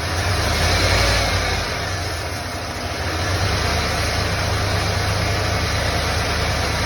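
Engine idling with a misfire, its loudness swelling briefly about a second in, dipping, then holding steady. The owner suspects one injector not firing.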